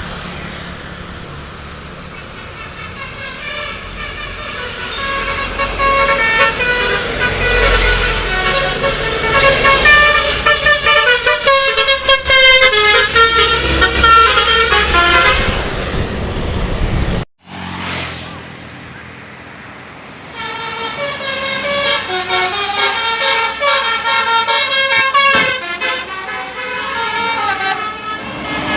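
Tour buses' telolet horns (Basuri multi-tone air horns) playing stepping, tune-like note sequences, loud and repeated. The sound cuts out abruptly about two-thirds through, then the horns start up again.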